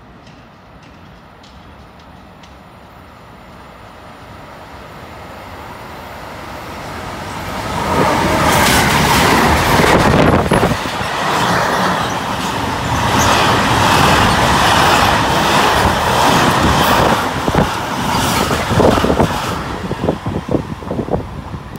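Freight train of open goods wagons passing close by on the near track: a rumble that grows steadily, turns loud about eight seconds in with dense wheel-on-rail clatter, and breaks into separate fading wheel knocks near the end as the train clears.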